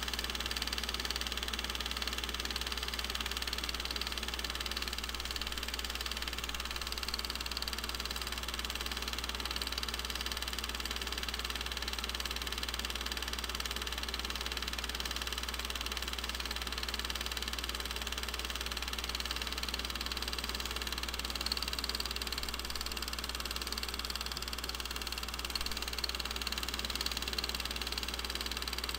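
Steady mechanical running noise of an 8mm film projector, an even hum that does not change.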